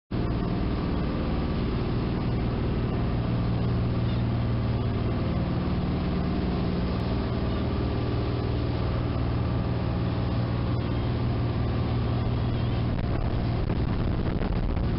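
Sightseeing cruise boat's engine running steadily with a low, even hum, over the rush of water along the hull and wake.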